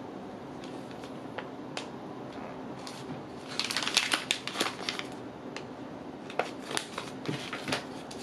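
Plastic wrapper of an emergency bandage crinkling and rustling as it is handled, in short spells of crackling, the busiest about four seconds in and a few more crackles near the end.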